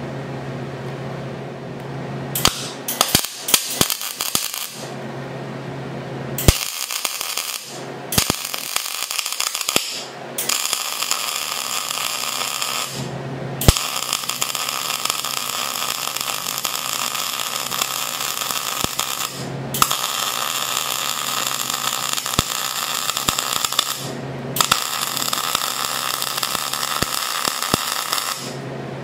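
MIG welder arc crackling as a finish weld is laid on steel. It runs for several seconds at a time with short pauses between, after a few brief sputtering starts about three seconds in.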